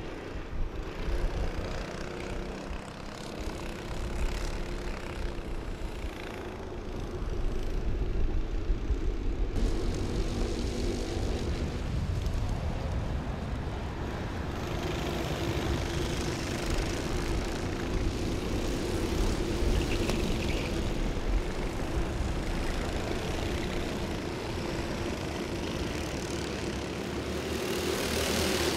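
Several Honda Cadet racing karts running on track, their small single-cylinder four-stroke engines buzzing together, with the pitch shifting as the karts lift off and accelerate through the corners.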